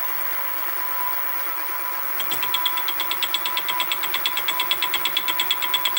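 Sieg SX2P mini mill running a fly cutter, set at about 500 rpm, with a steady motor hum and whine. About two seconds in, the cutter starts a light 5-thou pass into the metal and ticks evenly about eight times a second, once per revolution as its single cutting tip strikes the workpiece.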